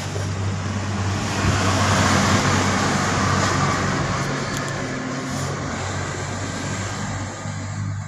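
Steady low mains hum from the home theater tower's speaker instead of sound, with a rushing noise that swells about two seconds in and then eases. With the series test bulb glowing fully, the hum goes with a short that the repairer suspects may be in the amplifier IC.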